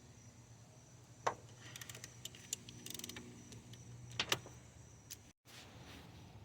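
Hand ratchet clicking faintly while it turns out the 14 mm bolt of the serpentine belt tensioner: a single sharp click, then a quick run of fine ticks, then two louder clicks of metal on metal.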